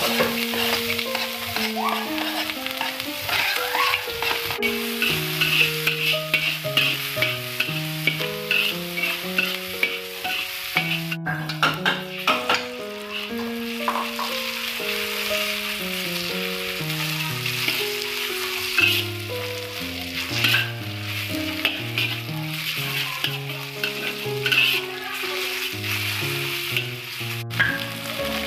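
Minced garlic and ginger, and later ground meat, sizzling and crackling in hot oil in a wok while a metal spatula stirs them. A melody of soft background music plays along with the frying.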